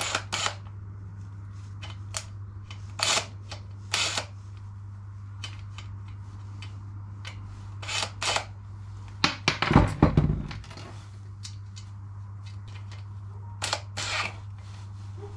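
Scattered sharp metallic clicks and clacks as a BMW E60 wiper linkage, with its wiper arm fitted, is handled and the arm's nut is done back up. A louder cluster of knocks and rattles comes about ten seconds in.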